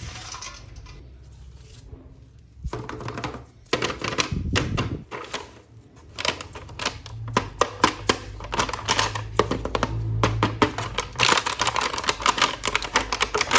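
Rapid clattering clicks, like hard plastic toy parts being handled, growing dense about halfway through, over background music.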